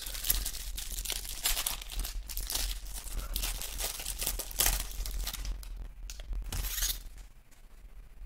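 Clear cellophane wrapper on a pack of football trading cards being torn and peeled off, crinkling and crackling, and stopping near the end.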